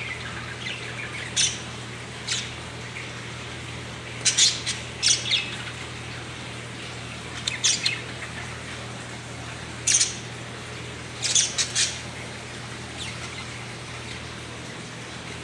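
A pet bird calling in short, sharp, high squawks that come singly or in quick clusters every second or few seconds, over a steady low hum.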